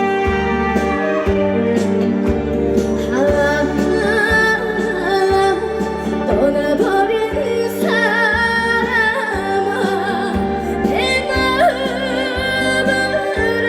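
Trot backing track over a PA system, playing an instrumental break: a steady bass beat about twice a second, with a lead melody line with wide vibrato entering about three seconds in.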